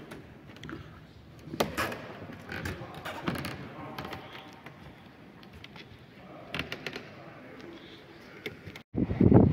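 Church interior ambience: scattered knocks and clicks with faint voices in the background. Near the end it cuts to loud wind buffeting the microphone outdoors.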